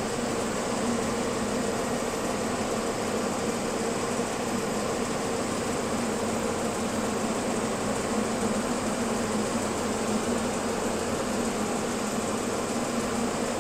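Lorry's diesel engine pulling steadily in second gear up a long climb, heard from inside the cab as an even, unchanging drone over road noise.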